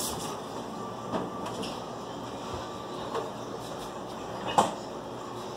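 Light kitchen handling sounds from a vegetable peeler and a potato: a few short knocks and scrapes over steady background noise, the sharpest click about four and a half seconds in.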